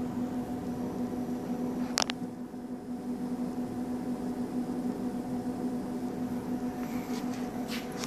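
Continental 2R reach-in refrigerator running with a steady electrical hum, a strong low tone with fainter overtones above it. One sharp click about two seconds in.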